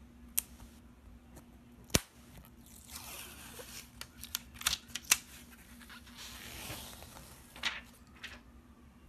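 Protective sheet being peeled off a new DHS Hurricane 3 Neo table tennis rubber: stretches of rustling and crackling, broken by several sharp clicks and taps from handling the sheet and rubber, the loudest about two seconds in and again about five seconds in.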